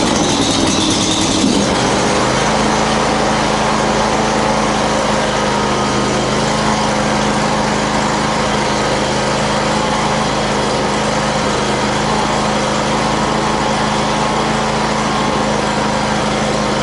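Predator 670 V-twin engine running on a test bench just after starting, its pitch shifting for the first couple of seconds before it settles into a steady run.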